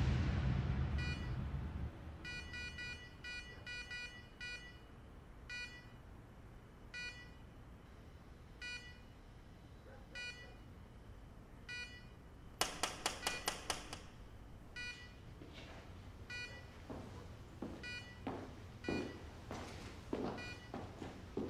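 A hospital bedside patient monitor beeping at an uneven pace, with a quick run of about eight louder beeps a little past halfway. It opens on a low music swell fading out. Over the last few seconds come footsteps on a hard floor.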